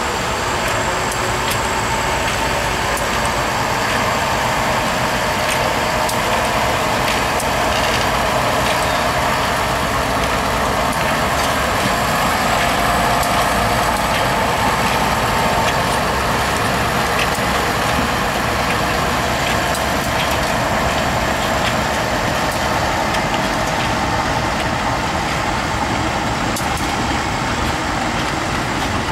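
Diesel locomotive engines running steadily at low speed during a shunting move: a Krupp M250D2 diesel-hydraulic shunter pulling cars with a GE diesel-electric locomotive coupled behind. The sound is a loud, even drone throughout.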